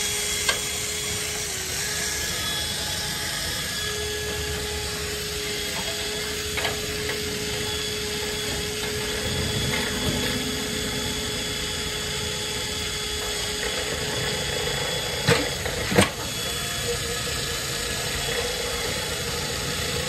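Cordless drill spinning a flexible rotary dryer-vent cleaning rod inside the vent duct: a steady motor whine with a constant hum, broken by two sharp knocks about fifteen and sixteen seconds in, then cutting off right at the end.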